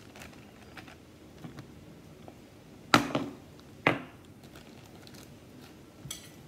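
Plastic bag crinkling as it is handled, with two sharp hard knocks about a second apart midway through, like a heavy glass object being knocked and set down on a hard surface.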